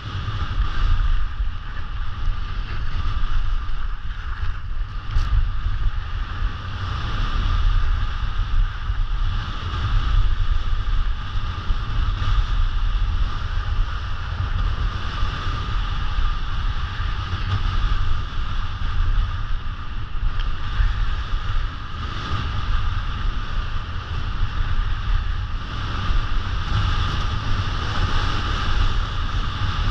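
Wind rushing over the microphone of a camera moving fast downhill, a steady buffeting rumble, over a continuous hiss of snowboard edges carving groomed snow.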